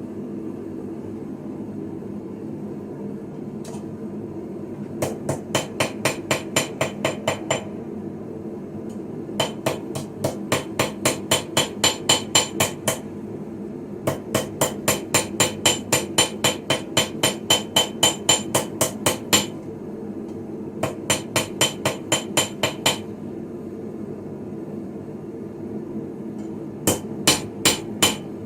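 Hand hammer forging a sickle blade on an anvil: runs of quick ringing blows, about four a second, broken by short pauses. A steady low hum sits underneath.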